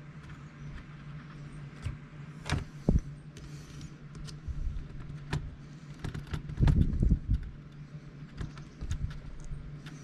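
Scattered small clicks and taps from handling a laptop's new screen panel and plastic parts, with a cluster of louder knocks about two-thirds through, over a steady low hum.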